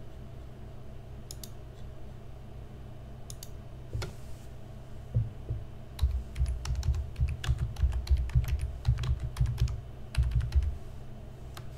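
Typing on a computer keyboard: a few scattered key clicks at first, then a fast run of keystrokes from about five seconds in that stops shortly before the end.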